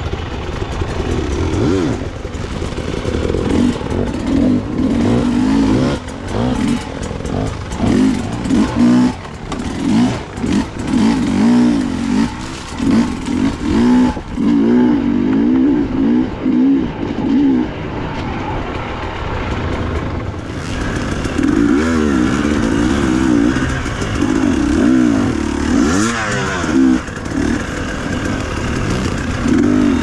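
Dirt bike engine revving up and falling back again and again as it is ridden along a rough trail, with frequent knocks and rattles.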